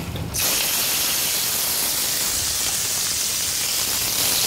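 Wild boar medallions laid into a hot frying pan and sizzling as they sear. The hiss starts suddenly about half a second in and holds steady, getting a little louder near the end.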